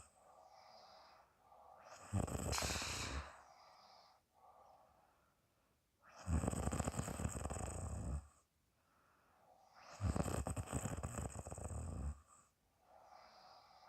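A woman snoring loudly in her sleep: three long snores about four seconds apart, with softer breathing between them.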